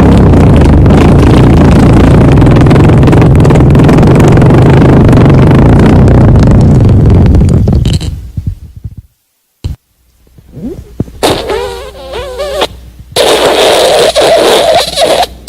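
A long, loud, low buzzing fart lasting about eight seconds before it fades out. After a brief silence come shorter, higher wavering sounds, then another loud one near the end.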